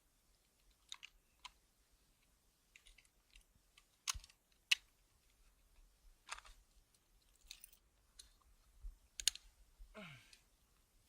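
Scattered sharp clicks and clinks of climbing hardware being handled, carabiner gates and rope descenders clipped in before an abseil, the loudest a few seconds in and again later on. A short sound falling in pitch near the end.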